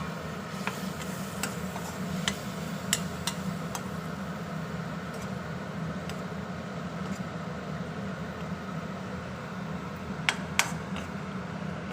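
A spatula knocks and scrapes against a cooking pan now and then as the onion and spice masala is stirred. Most of the knocks come in the first few seconds, with two more about ten seconds in, over a steady low hum.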